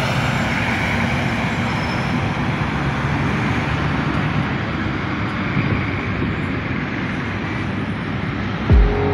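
Steady road and traffic noise from a vehicle driving through city streets. Near the end, music with a heavy bass beat comes in.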